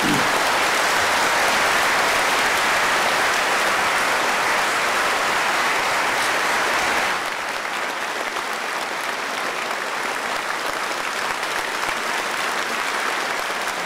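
Audience applauding steadily, a dense clapping that eases off slightly about seven seconds in and carries on at a lower level.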